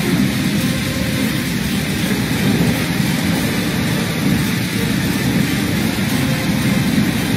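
Steady rushing roar of floodwater pouring across a flooded city avenue.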